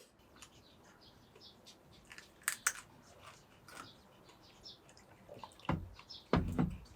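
Close-up eating sounds: chewing with small clicks, two sharp taps a little over two seconds in, and a couple of dull thumps near the end.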